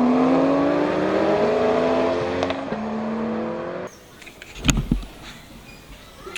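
Sports-car engine sound revving up through several gear changes, its pitch climbing in steps, then cutting off abruptly about four seconds in. A short thump follows about a second later.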